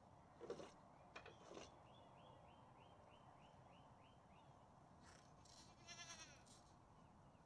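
A goat bleats once with a wavering call about six seconds in, after a few soft knocks near the start.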